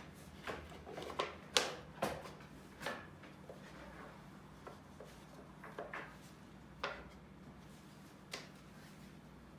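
Irregular light knocks and clicks of wooden pieces being handled and set against each other, the sharpest about a second and a half in, over a faint steady low hum.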